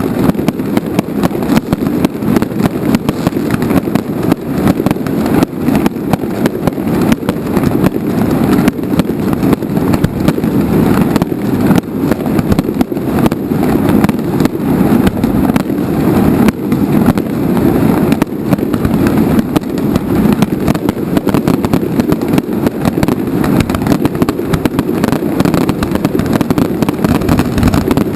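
Fireworks display: a loud, dense and unbroken barrage of rapid bangs and crackles, with a rumble beneath them.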